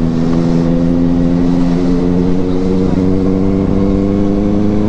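Benelli 600i's inline-four engine running at a steady, even note under light throttle as the motorcycle rides on.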